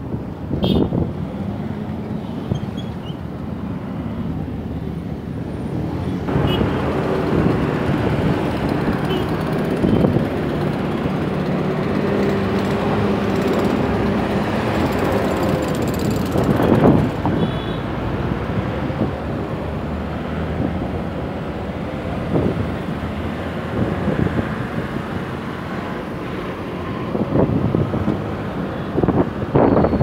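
Busy road traffic: vehicle engines running and passing, with a heavy vehicle's steady engine hum through the middle and a few short knocks.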